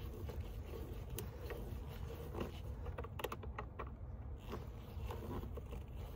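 Light clicks and plastic knocks of an air intake tube being pushed onto the throttle body and its hose clamp worked by hand, a cluster of clicks a little past the middle, over a steady low rumble.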